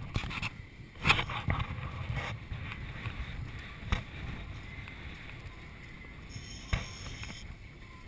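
Wind buffeting the microphone over the steady wash of water along a boat at sea, with a few sharp knocks about one, four and seven seconds in.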